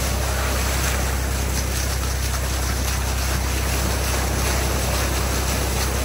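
Bow wave of a Nordhavn 62 trawler yacht under way, water rushing and hissing steadily along the hull, with wind on the microphone and a constant deep rumble underneath.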